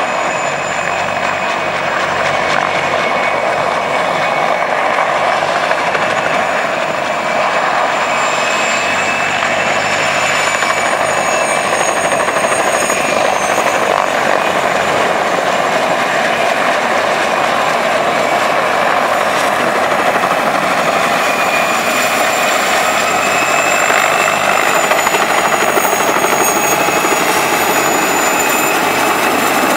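Mil Mi-2 helicopter hovering, its rotor and twin turboshaft engines making a loud, steady din with a high whine that drifts slightly in pitch.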